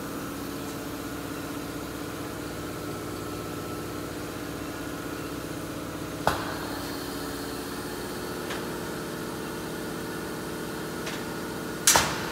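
TPS sheet-fed thermoformer running with a steady hum of several tones while the plastic sheet heats in its oven. A single sharp metal clank comes about halfway, and a louder cluster of metal knocks near the end.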